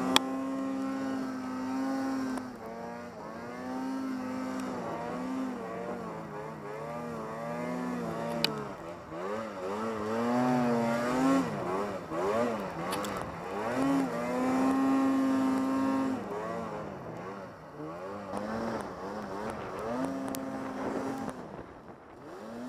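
Arctic Cat snowmobile's two-stroke engine revving up and down again and again as the throttle is worked, with a few longer held high runs. Two brief sharp knocks, one right at the start and one about eight seconds in.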